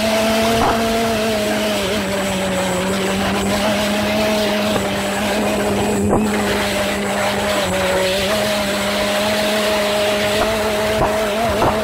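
An engine running steadily: a constant drone with a slight wavering in pitch and a noisy rush around it.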